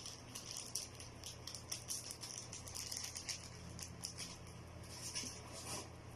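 Light rustling and small clicks from a new pair of sneakers and their packaging being handled: an irregular run of short scratchy sounds, busiest near the end.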